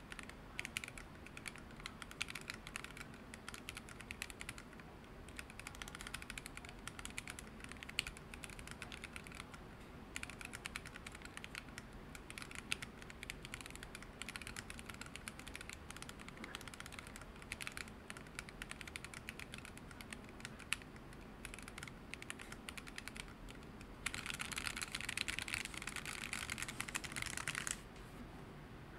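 Typing on a Corne split keyboard with factory-lubed 62 g Banana Split linear switches and PBT OEM keycaps in an open case: a steady run of quick key clacks. Near the end the typing gets louder and denser, then stops suddenly.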